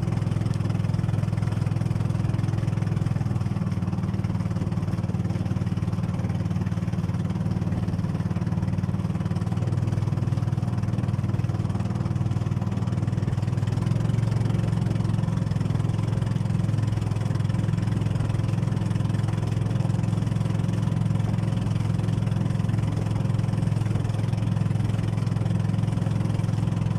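Outrigger boat's engine running steadily under way, a constant low drone, with water rushing and splashing along the hull and outrigger float.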